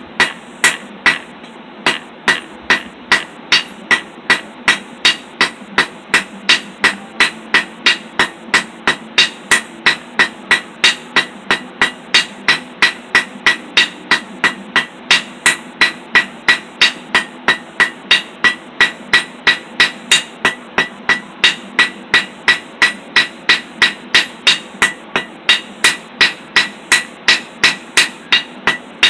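Blacksmith's hand hammer striking a hot steel roasting-stick bar on an anvil in a steady rhythm of about two to three ringing blows a second, drawing out a taper. A steady low hum runs underneath.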